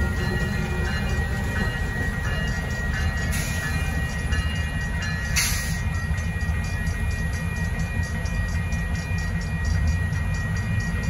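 Two EMD SW1500 switcher locomotives pass slowly over a grade crossing, their 12-cylinder 645 diesels running low and heavy. The crossing bell rings steadily over the engines. Two brief hisses come about three and a half and five and a half seconds in.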